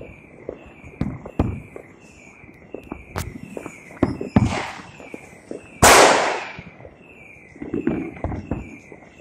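Fireworks and firecrackers banging at irregular intervals, with one much louder bang about six seconds in that echoes and fades over about a second. A high falling chirp repeats about twice a second behind them.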